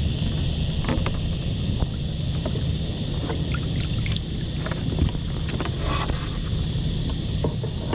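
A crab hoop net hauled out of the water onto a kayak: water splashing and dripping off the mesh, with scattered clicks and rustles of rope and net, over a steady low hum.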